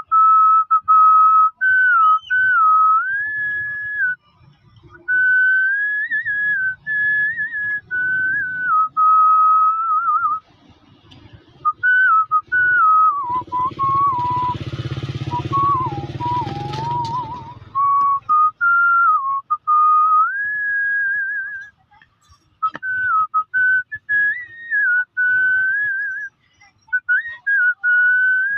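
A man whistling a tune through pursed lips: a single clear tone stepping up and down between notes, broken by a few short pauses. A low rumble sits under it for a few seconds around the middle.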